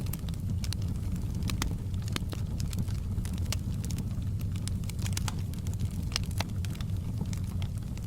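Wood fire in a fireplace crackling: irregular snaps and pops, several a second, over a steady low rumble of the burning.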